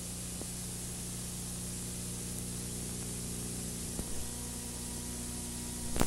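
Steady hiss with a low, even hum from an old videotape recording. A faint click comes about four seconds in and a short, louder crackle right at the end.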